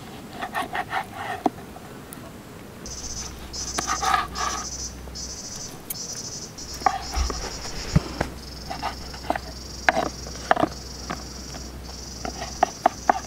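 Kitchen knife cutting raw chicken on a wooden chopping board, giving irregular knocks of the blade on the wood. From about three seconds in, insects buzz high and steadily in pulses.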